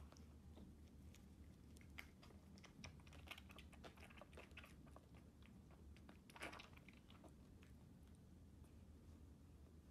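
Faint wet clicking and smacking of a baby bobcat kitten suckling from a feeding-bottle nipple, with one louder smack about six and a half seconds in.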